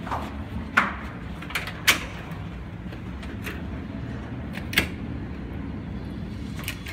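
A glass-paned door being opened and passed through: a handful of sharp, irregular clicks and knocks from its handle and latch, the loudest about two seconds in, over a steady low rumble.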